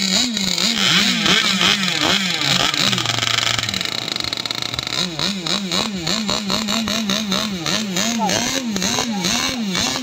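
Several modified chainsaw engines of racing RC powerboats running hard together, their pitches rising and falling over each other as the throttles open and close, with one lower engine note wavering up and down at a steady pace.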